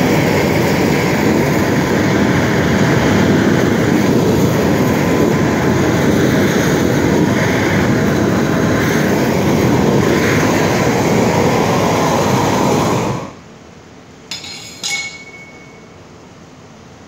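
Hand-held propane torch burning with a loud, steady rush as it heats stainless steel. The flame cuts off suddenly about thirteen seconds in. A couple of short knocks follow.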